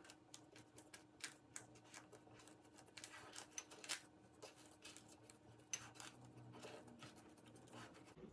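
Hands kneading almond flour into butter for a pie-crust dough in a metal cake pan: faint, irregular crumbly rustles and soft scratchy clicks, over a faint steady hum.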